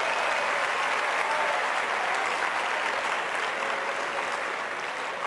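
Large arena crowd applauding steadily, slowly dying down.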